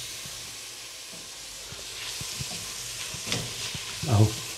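Chopped onion, bell peppers, olives and mushrooms sizzling as they sauté in oil and butter in a pan, with a spatula scraping and knocking against the pan as they are stirred; the loudest stroke comes near the end.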